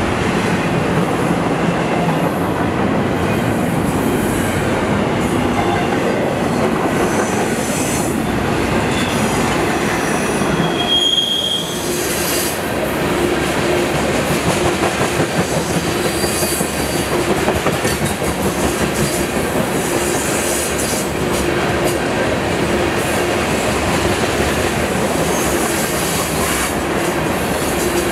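Freight cars rolling past close by, double-stack intermodal well cars and then open-top hopper cars: a steady rumble and clatter of steel wheels on the rails. A short, high wheel squeal comes about eleven seconds in.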